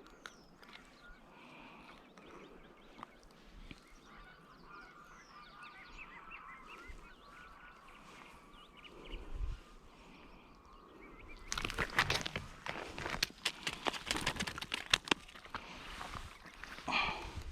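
Faint bird calls, with a short honking call near the end. For about four seconds past the middle there is a loud run of close, rapid clicking and clattering.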